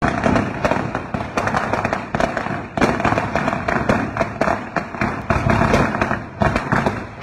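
A long string of firecrackers going off, a rapid, continuous run of sharp bangs with a brief lull near the end.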